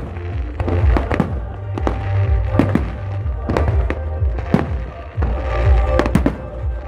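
Fireworks going off: a run of sharp, irregular bangs and crackles over a deep rumble of booms, with music playing underneath.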